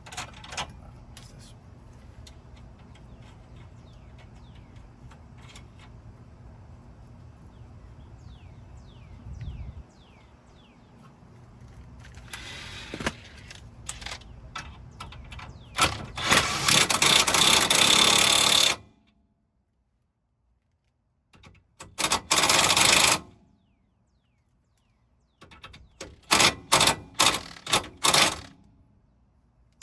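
Mechanic's tools at work on a car's front suspension: light metal clicks over a low hum, then several loud bursts of rapid mechanical rattling, the last in about six quick pulses, each cutting off abruptly.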